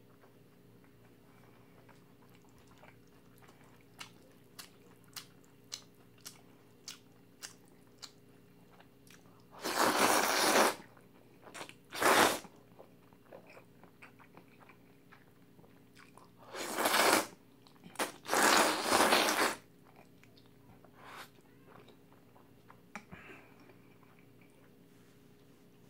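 A person chewing food with a run of small wet mouth clicks, then loudly slurping noodles in four bursts, each up to about a second and a half long, with quieter chewing between them.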